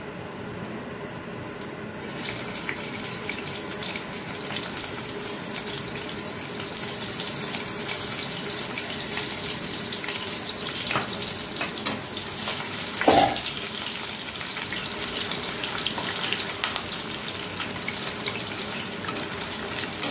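Sliced onions going into hot mustard oil in a kadai: a loud frying sizzle starts suddenly about two seconds in and keeps going. A metal spatula stirs them, clicking against the pan, with one loud knock near the middle.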